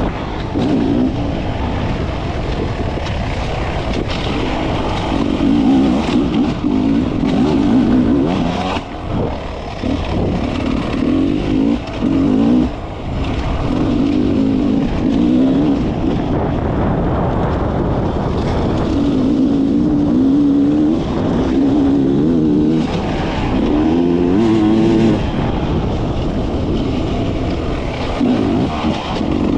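Beta enduro dirt bike's engine running under the rider, its pitch rising and falling with the throttle as it rides over a rough dirt track, with wind and chassis rattle mixed in.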